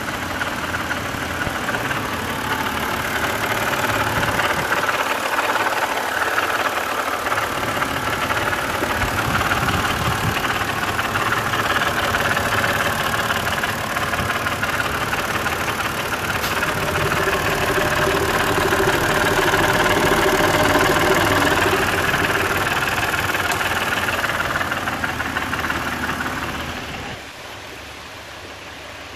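BMW N52 straight-six engine running with a loud rattle from the cylinder head. The rattle comes from the exhaust VANOS variator, whose bolts have sheared off so the exhaust camshaft can move back and forth. About 27 seconds in, the sound drops suddenly to a quieter steady hiss.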